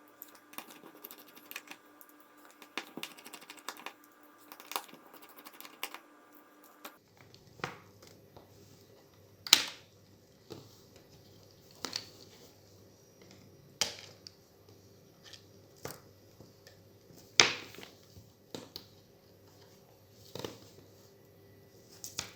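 Small clicks and taps of tools and parts being handled while a Samsung Galaxy Note 8 is taken apart. Many light, quick clicks for the first several seconds, then single sharper clicks every couple of seconds.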